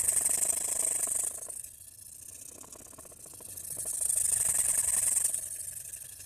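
Carbon steel knife edge grinding on a coarse Shapton Glass 500 whetstone, a steady rasping hiss. There are two long strokes with a quieter gap between them, as the edge is ground at a steep angle to take out chips.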